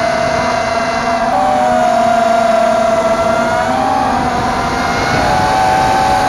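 Brushless motors and propellers of a 260-size FPV racing quadcopter whining in flight, heard from a camera on the frame. Several close pitches weave around one another, stepping about a second in and shifting again near the end as the throttle changes.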